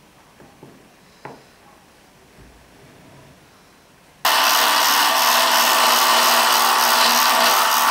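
A few faint light knocks as a steel plane iron is set into its wooden plane body. Then, about four seconds in, an electric drill starts running steadily and loudly as a twist bit bores into wood.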